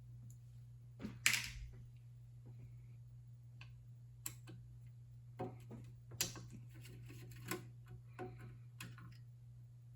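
Scattered light clicks and taps of a hex wrench and small screws being handled as the main circuit board is unfastened from the telescope's base, the loudest about a second in, over a steady low hum.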